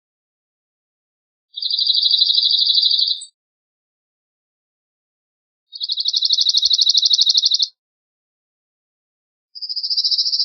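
Cirl bunting singing: three dry, rattling trills, each a fast run of one repeated high note lasting about two seconds, separated by pauses of a couple of seconds, the third beginning near the end.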